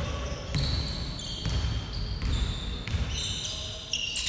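A basketball being dribbled on a wooden gym floor, bouncing about once every three-quarters of a second, with sneakers squeaking on the court in short high squeals.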